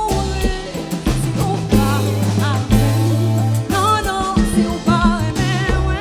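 Live konpa band music: a steady bass line and drum kit under wavering guitar or keyboard melody lines, with no lyrics sung.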